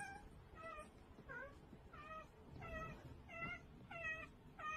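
A cat meowing over and over in short, high-pitched calls, about eight in a row and evenly spaced, roughly one every two-thirds of a second.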